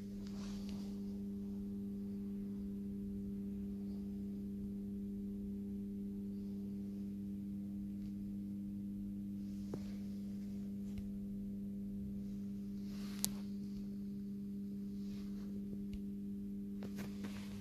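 Steady low electrical hum, one strong low tone with fainter higher tones above it, unchanging throughout, with two faint clicks, one about ten seconds in and one about thirteen seconds in.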